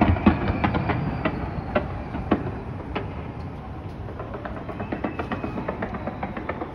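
Fireworks going off in a fast run of sharp cracks and bangs, thick at first and thinning out and getting quieter toward the end.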